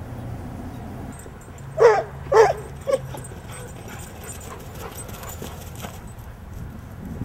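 A dog barking: two loud barks about half a second apart, then a shorter, weaker third.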